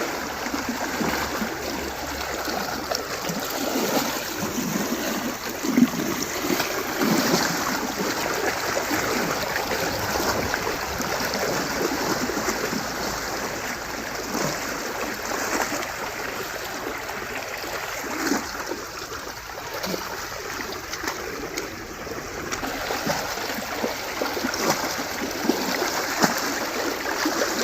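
Cattle wading through a shallow river: irregular splashing of hooves in the water over the steady rush of the stream, with one sharper splash about six seconds in.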